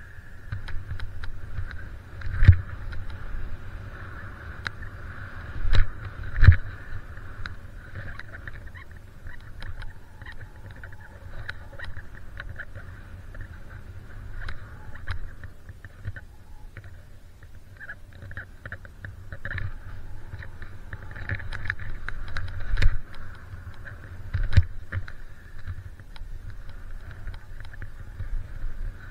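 Skis hissing through deep powder snow on a freeride descent, with wind rumbling on the microphone. About five heavy thumps cut through it, three in the first seven seconds and two more later on.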